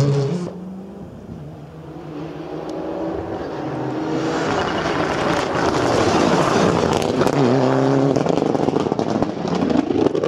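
A rally car's engine fades away at the very start. Then a Mitsubishi Lancer Evolution rally car approaches at full throttle, getting steadily louder, with a brief dip in revs about eight seconds in before it pulls hard again.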